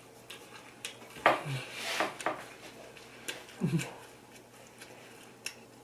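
Cutlery and dishes clinking during a meal: a handful of short, scattered taps and clicks.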